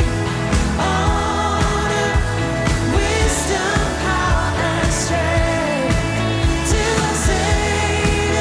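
A live contemporary worship song: a band plays over a steady bass, with a voice singing above it.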